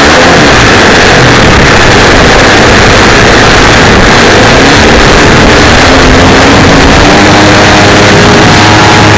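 The 55cc gas engine of a 30% scale Peak Model Yak 54 RC airplane running in flight, heard very loud from a camera strapped to the wing, with wind rushing over the microphone. The engine note rises and steadies about six seconds in.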